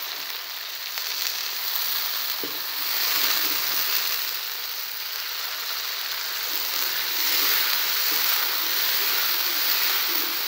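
Hot oil with fried onion and garlic sizzling in a nonstick wok as raw chicken pieces go in and are stirred with a spatula. The sizzle gets louder from about three seconds in, with one short knock just before.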